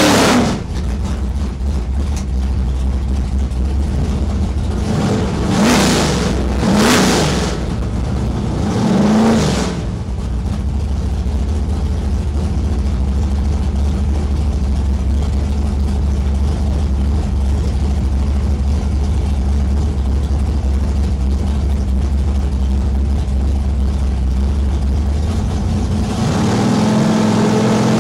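Ford F150 drag truck's engine heard from inside the cab: a few short revs in the first ten seconds, then a steady low idle. Near the end the revs climb again as it comes up for the launch.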